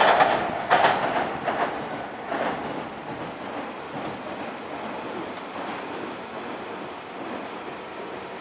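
Nankai Electric Railway train passing and moving away, its wheels clacking over the rail joints a few times in the first couple of seconds. The sound then fades into a fainter steady rumble as the train recedes.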